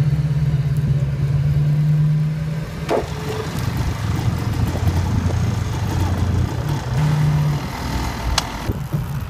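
Tow vehicle's engine running steadily under road noise as it tows a dead dirt bike, its pitch dropping about two and a half seconds in and rising briefly near seven seconds. Two sharp clicks, about three seconds in and near the end.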